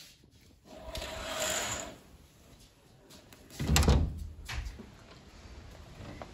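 A curtain dragged along its rail with a scraping swish, then a little past halfway a sharp click and a low thump as a wooden balcony door is opened.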